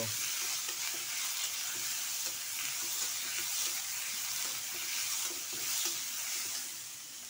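Potatoes and sliced onions sizzling in hot mustard oil in a metal kadai, stirred with a metal spatula that clicks and scrapes against the pan now and then.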